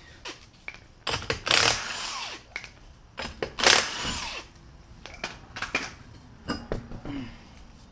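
Impact wrench on a car's wheel lug nuts, running in two short bursts about a second and three and a half seconds in. Scattered metallic clicks between the bursts come from the nuts being handled.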